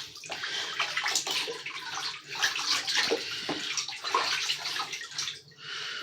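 Bathwater splashing and sloshing in a filled bathtub as a cat moves about in it, in many small uneven splashes.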